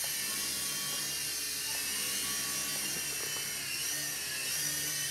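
UDI/RC U12S toy RC helicopter's small electric motors and rotors whining steadily in flight, the high pitch wavering up and down in the second half as the throttle changes.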